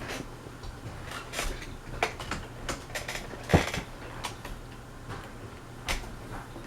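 Westinghouse Apollo Elite ceiling fan running on medium speed with a steady low hum. Scattered irregular clicks and knocks sound over it, the loudest about three and a half seconds in.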